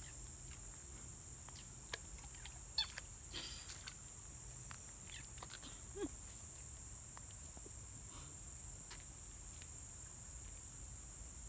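Steady high-pitched insect chorus with a few short squeaks and plops: alarm calls of juvenile bullfrogs jumping into the water, clustered around three seconds in and again at about six seconds.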